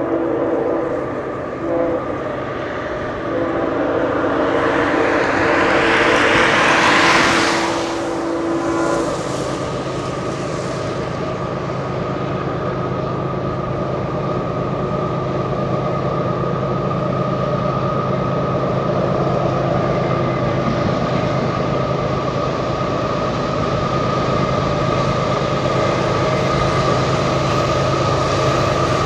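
Approaching diesel freight train: the locomotive horn sounds a chord in blasts for about the first nine seconds, with a rushing noise swelling and cutting off near the middle of that, then the steady drone of the locomotive and train.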